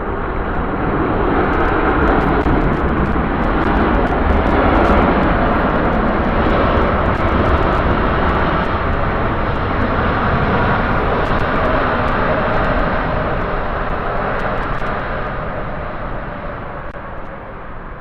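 Jet airliner's engines passing close by, a loud rushing noise that swells to a peak about five seconds in and then slowly fades away.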